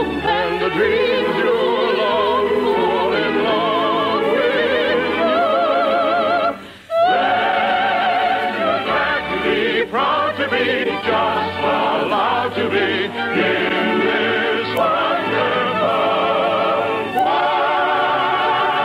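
Operatic singing with wide vibrato over an orchestra, several voices at once, with a choir joining in: the closing number of a radio operetta, heard as an early-1950s broadcast recording. The music drops out briefly about six and a half seconds in, then comes back in full.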